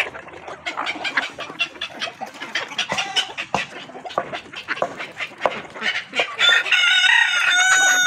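A flock of chickens clucking and calling, many short overlapping calls. About six seconds in, a rooster crows: one long call, the loudest sound here.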